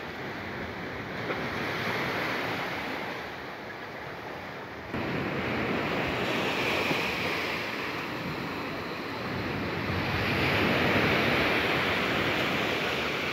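Sea water surging and splashing in foaming waves, with wind buffeting the microphone. The rush swells and fades, jumping louder about five seconds in.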